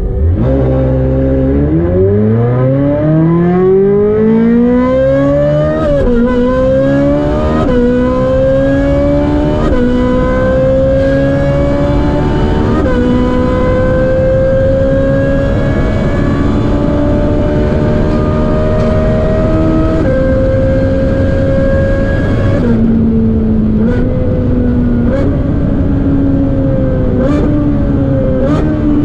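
Ferrari 458's V8, fitted with a Brilliant aftermarket exhaust, at full throttle on track. The pitch climbs steeply, then keeps rising more slowly with brief dips at several upshifts. A little past two thirds in the revs fall, with a few quick blips on downshifts, and the engine climbs again near the end.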